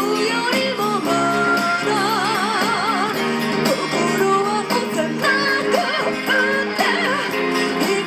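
A woman singing a hard-pop song live into a microphone with vibrato on held notes, over an amplified acoustic guitar.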